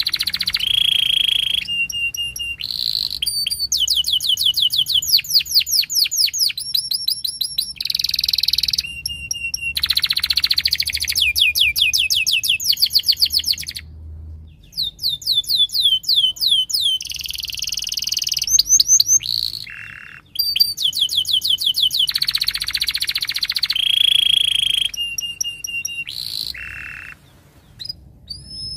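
Domestic canary singing a long, loud song of fast trills: phrase after phrase of rapidly repeated high sweeping notes, each phrase changing to a new note every second or two, with a short pause about halfway.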